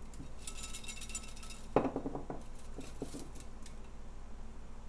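Folded paper slips rattling in a small plastic mesh cup as a hand stirs through them to draw one. A sharp knock comes just under two seconds in, followed by a few lighter taps.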